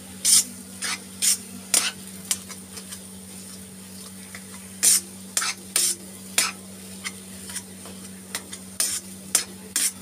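Metal spoon scraping and pressing against a kadhai as spiced boiled-potato stuffing is stirred and mashed in hot mustard oil, in irregular strokes with a cluster around five to six seconds in and several more near the end. A faint sizzle of frying and a steady low hum run underneath.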